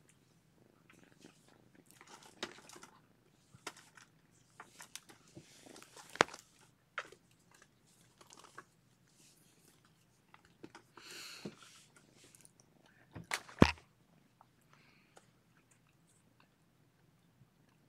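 Kittens playing close to the microphone: scattered small taps, clicks and rustles, with two sharper knocks about six and thirteen and a half seconds in.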